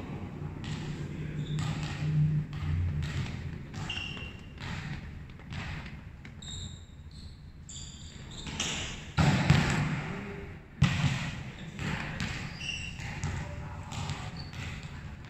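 A volleyball being hit and bouncing on a hard court floor: irregular thuds and slaps, the two loudest about nine and eleven seconds in.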